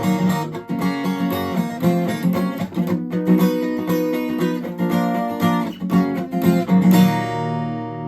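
Acoustic guitar strumming chords in a steady rhythm, ending on a final chord that is left to ring and fade near the end.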